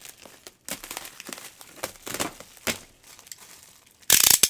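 Thin plastic bag, like a trash bag, crinkling and rustling in irregular bursts as it is pulled off a box, with one loud, sharp rustle near the end.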